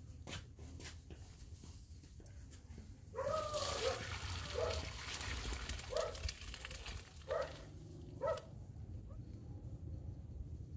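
Water splashing as a metal pot of rice is tipped into a plastic colander to drain, with a dog barking about five times, a second or so apart, starting about three seconds in.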